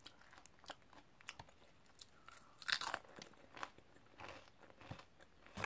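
Mouth crunching and chewing a Popworks popped crisp: a run of short crisp crunches, loudest about three seconds in and again near the end.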